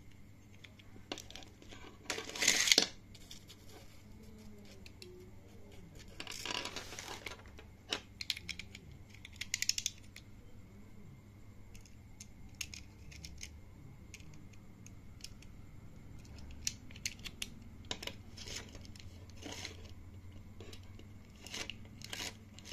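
Plastic handling sounds from a toy spinning-top launcher and its toothed plastic ripcord: scattered clicks and several short rasps, the loudest about two seconds in and another at about six seconds.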